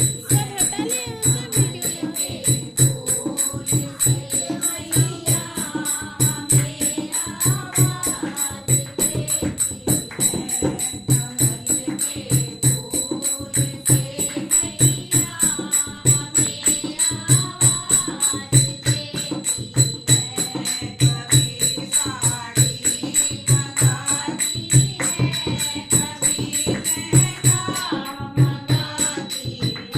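Bhajan music: a low drum beating steadily about twice a second with a jingling tambourine, and a wavering sung melody that comes and goes.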